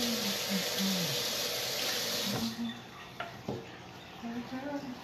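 Kitchen tap running in a steady stream, turned off about halfway through, followed by a couple of light knocks.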